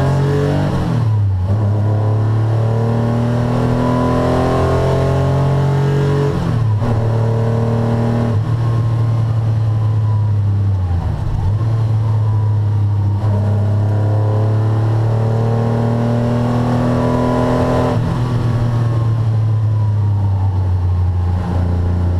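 1981 Porsche 911 SC's air-cooled flat-six engine heard from inside the cabin, pulling hard on track. The pitch climbs slowly under load and drops away at several gear changes and lifts.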